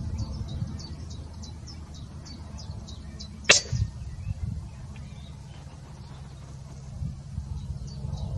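A PCP air rifle firing a single shot about three and a half seconds in, a sharp crack, followed by a couple of fainter knocks. Quick, faint, high chirps run underneath, stopping around the shot and returning near the end.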